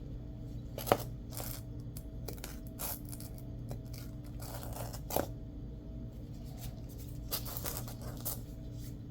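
Hand handling noises from working on a homemade patch: a sharp click about a second in, another about five seconds in, and brief scraping, tearing-like rustles between, over a steady low hum.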